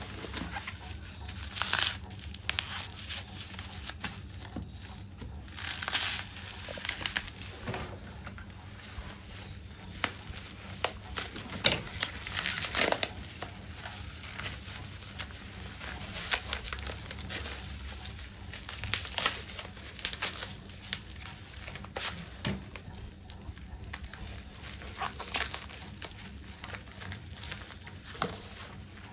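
Packaging crinkling and tearing as it is handled and opened, in irregular rustles and short sharp crackles.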